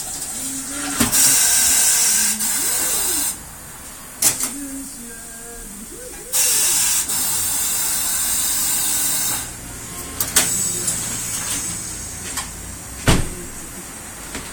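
Compressed air hissing from a tire-shop air line in two long blasts of a couple of seconds each, with a few sharp metallic knocks in between.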